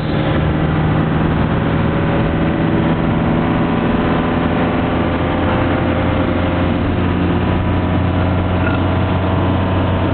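Car engine running at a steady pitch with road noise, heard from inside the vehicle.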